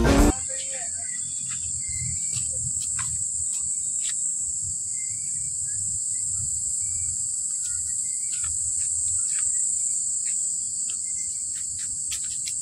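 Insects droning outdoors: one continuous, high-pitched buzz that holds steady throughout.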